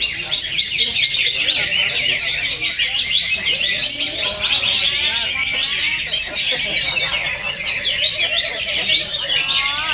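Several green leafbirds (cucak ijo) singing at once in a contest-style recording: a dense, continuous tangle of fast, high chirps, whistles and trills that overlap without a break.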